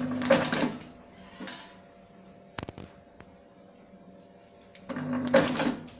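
Automatic taping machine running its wrapping cycle: two bursts of mechanical noise, each about a second long and about five seconds apart, with a sharp click between them over a faint steady motor hum.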